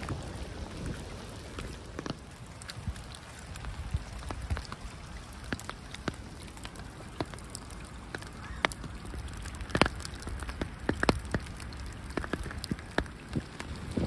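Light rain falling into shallow floodwater: a steady patter with individual raindrops plinking irregularly, more of them in the second half.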